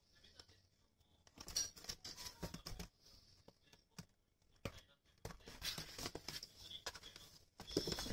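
Cat rolling and scrabbling inside a cardboard box: irregular scratching and scraping of claws and body on the cardboard, with light knocks. It comes in a short spell about a second and a half in and a longer one from about halfway on.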